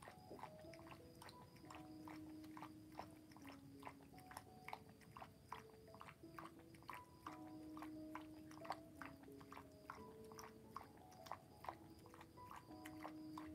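An old dog eating a snack from a ceramic bowl: faint, irregular chewing and crunching clicks, several a second. Under it runs soft music of slow held notes.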